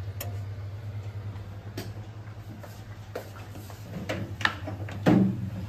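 Light clicks and knocks of a glass bowl being lifted out of a microwave and carried, ending in one louder clunk about five seconds in, over a steady low hum.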